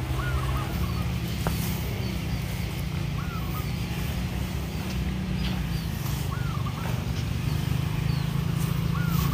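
An engine running steadily, its pitch stepping up a little about a second in. Over it, a bird repeats a short rising-and-falling call about every three seconds.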